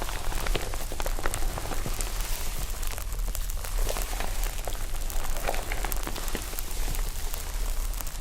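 Slime being worked by hand, crackling with a dense, continuous run of small pops and clicks.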